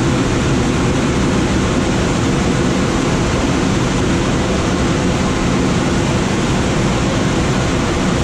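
Steady rush of airflow around a glider's cockpit in flight: an even, unbroken noise.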